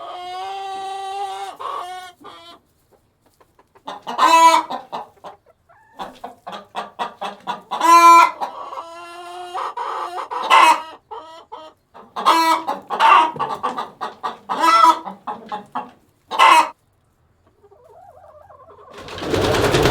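Chickens calling: a rooster crowing and hens clucking in runs of short calls, with several louder drawn-out calls. A broad rush of noise swells in near the end.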